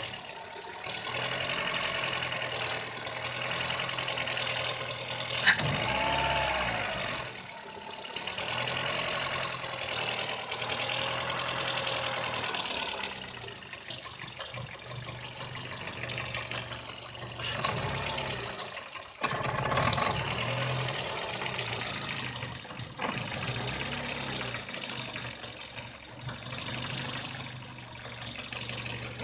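VW Polo 6N engine idling roughly, its sound swelling and dipping unevenly: the rough idle fault the owner has not been able to solve. A single sharp click about five and a half seconds in.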